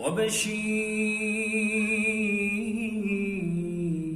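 A man's unaccompanied voice singing an Islamic devotional nasheed (inshad). He holds one long, ornamented note with a wavering vibrato and steps down in pitch about three and a half seconds in.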